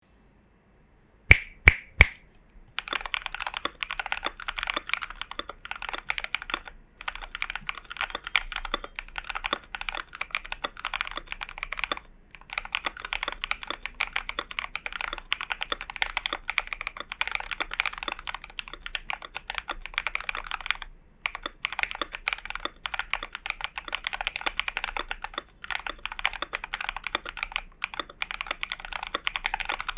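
Glorious GMMK Pro mechanical keyboard with lubed switches and PBT keycaps being typed on quickly in runs of several seconds with brief pauses. Three sharp, louder knocks come about a second in, before the typing starts.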